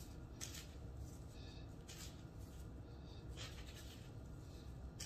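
Gloved hand pressing and patting panko bread crumbs onto a breaded grits patty in a plastic container: soft crumbly rustling, with four or so brief scratches over a low steady hum.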